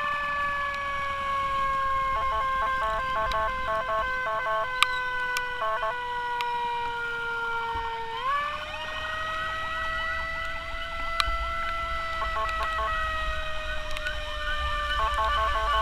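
Ambulance siren wailing: one long tone that falls slowly, sweeps up sharply about eight seconds in, then drifts slowly down again. A second, rapid chopped siren tone breaks in several times over a low road rumble.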